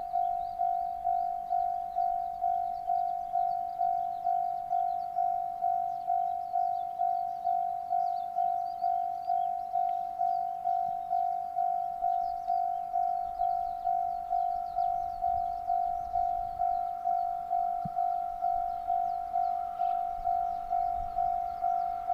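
Japanese level-crossing warning bell ringing steadily, an electronic ding repeating about twice a second, the signal that a train is approaching the crossing.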